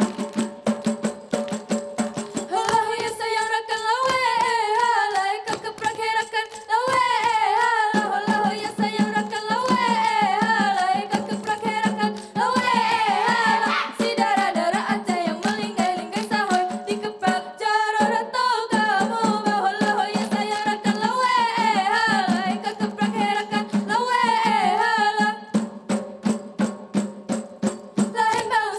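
Acehnese group-dance music: a lead voice singing a winding melody over drums, with the kneeling dancers' hand claps and body slaps keeping a fast, even beat. The singing stops briefly near the end while the percussion goes on.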